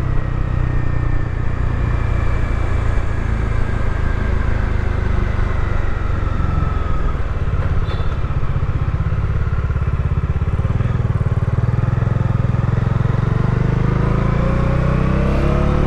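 Bajaj Dominar 400 motorcycle running at road speed, a steady low rumble picked up by a microphone inside the helmet's cheek pad. A faint whine above it falls slowly over the first several seconds and rises again near the end.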